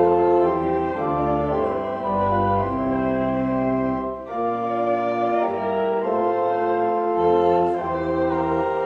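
Church pipe organ playing slow held chords over a bass line that steps from note to note, with a brief break between phrases about four seconds in.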